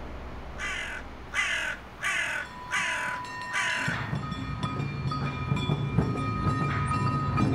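A crow cawing five times in a row, harsh calls about two-thirds of a second apart. About four seconds in, music with a steady beat starts.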